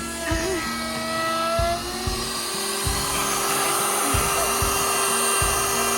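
Router with a laminate trim bit running at high speed as it cuts the edge of a Formica countertop sheet. Its whine wavers in pitch over the first couple of seconds, then holds steady.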